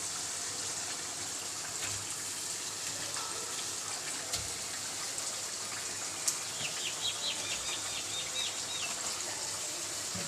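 Chicken pieces sizzling in hot ghee and masala in a karahi, a steady hiss with a few sharp clinks. A short run of high chirps comes about two-thirds of the way in.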